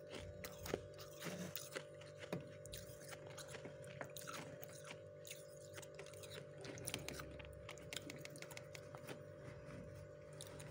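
Thick snowy frost inside a freezer crunching and crackling as a hand digs into and squeezes it: a quick, uneven run of small crisp crunches over a steady low hum.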